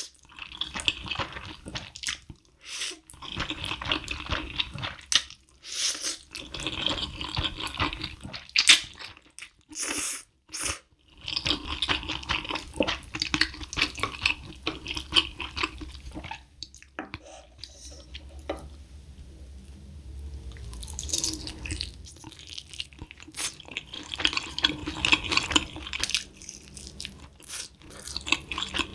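Close-miked eating sounds: slurping and chewing saucy Buldak fire chicken noodles, with wet mouth sounds and chopsticks stirring the noodles on the tray. Near the end, chewing spicy fried chicken.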